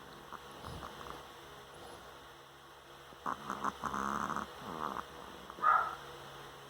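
Snoring: a faint breath about a second in, then one long fluttering snore starting about three seconds in and lasting over a second, followed by a brief, sharper and louder sound just before six seconds.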